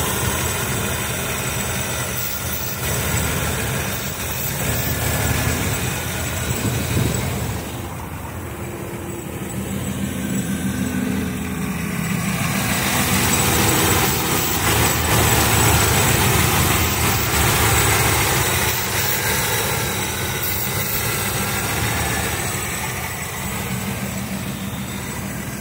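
Carbureted engine idling steadily; its loudness dips for a moment and then swells again about halfway through.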